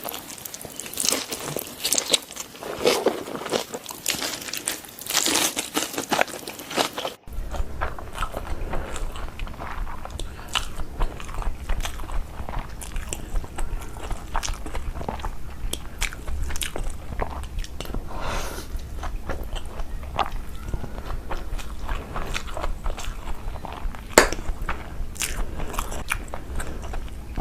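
Close-up eating sounds: crunchy bites and chewing, with many small clicks of the mouth and food. After a cut about seven seconds in, a low steady hum runs underneath, and one sharp click stands out late on.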